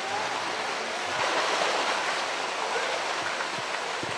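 Steady rush of water in a polar bear's pool, with the water lapping as the bear swims through it.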